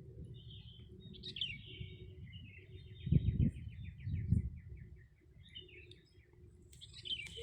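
A bird calling in a long rapid trill of high chirps that falls slightly in pitch. Two low thumps on the microphone stand out about three and four seconds in.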